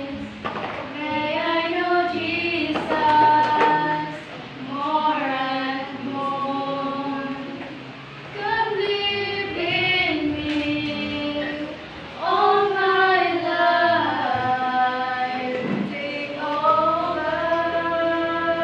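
Two women singing a song together, in phrases of long held notes with short breaks between them.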